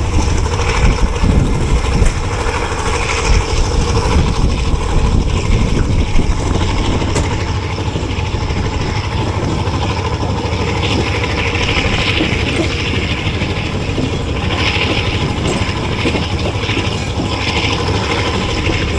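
Passenger train running: a steady low rumble with rattling from the coach and wheels on the track, and a hiss that swells now and then in the second half.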